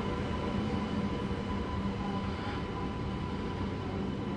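Sydney Metro Alstom Metropolis driverless train moving along the platform behind the screen doors: a steady low rumble with a constant electric hum.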